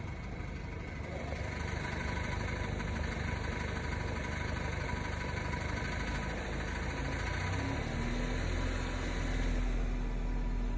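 Car engine idling with a DSG gearbox, making a noise or knock that the owner suspects could be the DSG, the flywheel or something else. About eight seconds in the sound shifts and a deeper hum comes in.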